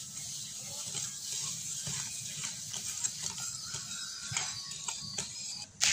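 Wire whisk beating eggs and sugar in a ceramic bowl: a fast, steady ticking and scraping of the wires against the bowl, with a single louder clink near the end.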